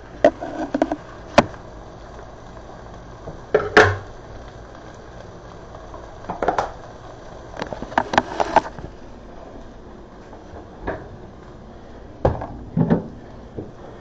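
Irregular knocks and clatters, about a dozen in scattered clusters, from a handheld camera and kitchen items being handled and set down on a counter, over a faint steady hiss.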